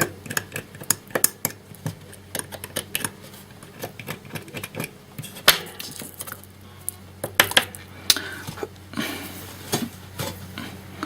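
Small hand tool cutting the copper tracks of stripboard: irregular light clicks and short scratchy scrapes as the strips are broken.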